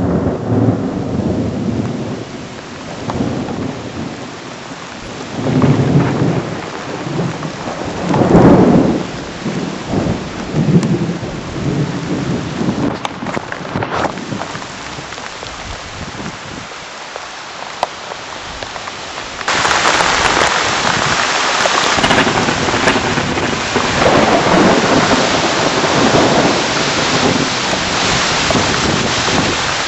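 Supercell thunderstorm: strong wind gusts buffet the microphone in low surges, then about two-thirds of the way through heavy rain sets in suddenly as a dense, steady hiss.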